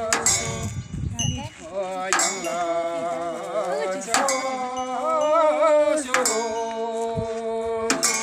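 Slow, evenly spaced strikes of cymbals about every two seconds, each ringing on, with voices singing a wavering chant between the strikes, as dance accompaniment.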